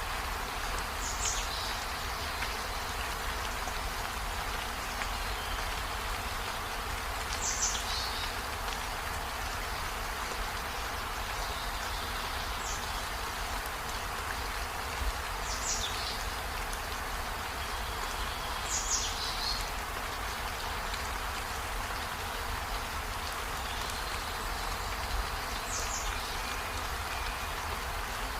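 Steady rain falling on trees, an even hiss with a low rumble beneath. About six short, high chirps that fall in pitch sound every few seconds over it.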